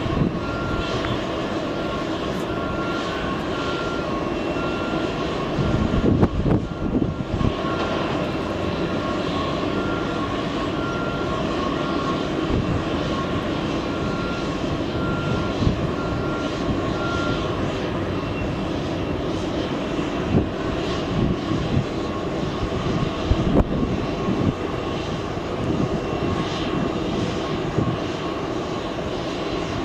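Boeing 747-8's four jet engines rumbling steadily with a crackle as the jet climbs away after takeoff.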